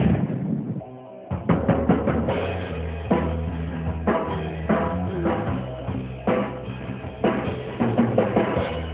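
A drum kit being played: separate hits on the drums and cymbals, a second or less apart, over a low steady hum. Louder music fades out in the first second, before the drumming starts.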